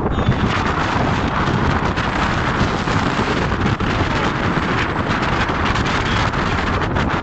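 Strong wind buffeting the microphone over the steady rush of choppy waves and water along a yacht's bow.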